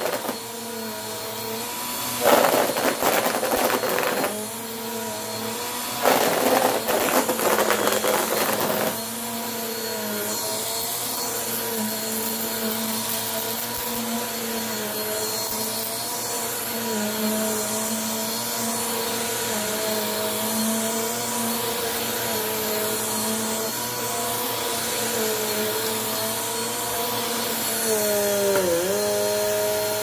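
Bissell PowerForce upright bagless vacuum cleaner running over carpet with a steady motor hum. Two louder spells of rattling come in the first nine seconds as debris is sucked up. Near the end the motor pitch dips briefly.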